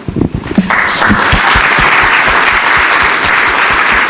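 Audience applauding at the end of a lecture, the clapping breaking out about a second in and then holding steady.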